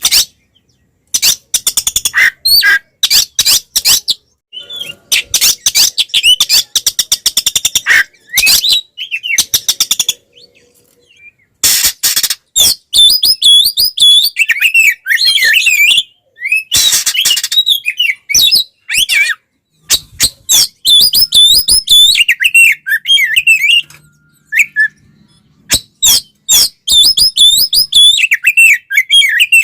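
Oriental magpie-robin (kacer) in full, combative song. Fast harsh rattling churrs give way to rapid twisting whistled phrases, loud and broken by short pauses.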